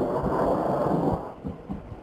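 Low rumble of rocket impacts on a firing range, with a few dull thumps, fading away a little after a second in.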